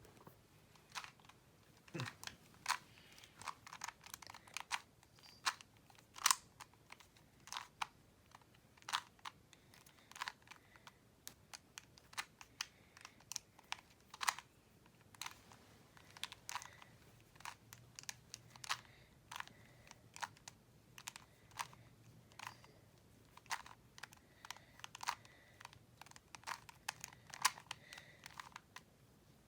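Plastic Rubik's Cube layers being twisted by hand, a stream of irregular sharp clicks and clacks, a few each second.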